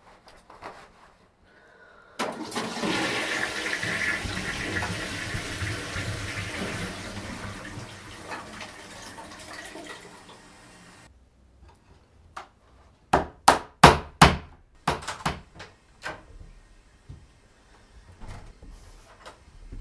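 A toilet flushes: water rushes in suddenly about two seconds in and runs, slowly fading, for about nine seconds before stopping. A couple of seconds later comes a quick run of sharp knocks, the loudest sounds here.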